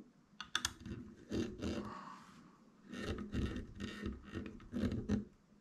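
Small hand screwdriver turning a machine screw into a chrome window-frame bracket, with metal scraping and clicking as the screw is driven. Low vocal straining sounds come from the person working, mostly in the second half.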